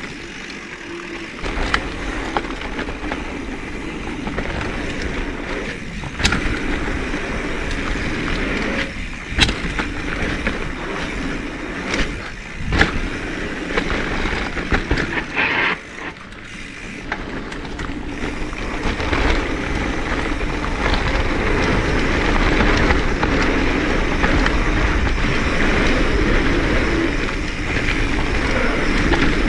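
Mountain bike rolling down a dirt trail: steady tyre noise with sharp knocks and rattles from the bike over bumps, louder and steadier in the second half.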